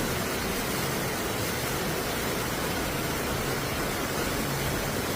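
Steady rushing noise of heavy rain and floodwater during a flash-flood storm, even and unbroken throughout.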